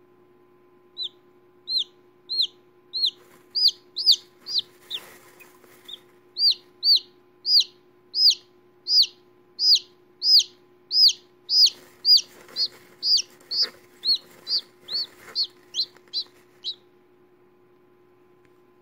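Newly hatched chicken chick peeping over and over: short high peeps, about two a second, with a brief break about five seconds in.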